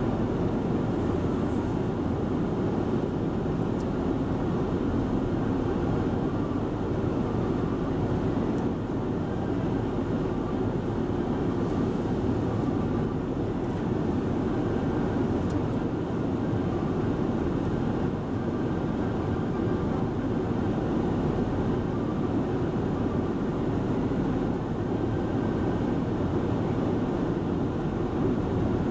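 A steady low rumble of vehicle or machinery noise, even in level, with no distinct tone, beat or sudden sound.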